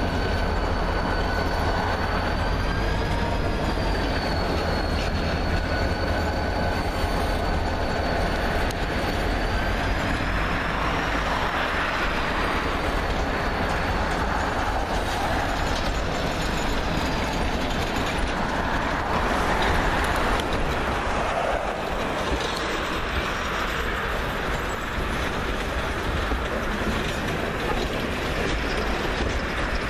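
Freight train rolling past: the diesel locomotives' low engine rumble fades over the first several seconds, while steel wheels squeal with a thin wavering whine that dies away about halfway through. After that, a steady rush and rumble of freight-car wheels on the rails, swelling and ebbing as the cars go by.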